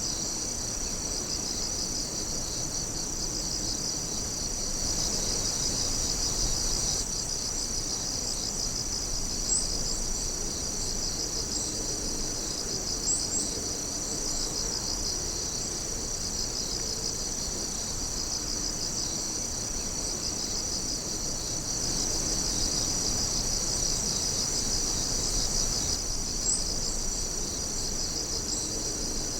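Chorus of night insects trilling steadily at a high pitch, with a fast pulsing trill underneath. A few brief, higher chirps stand out now and then.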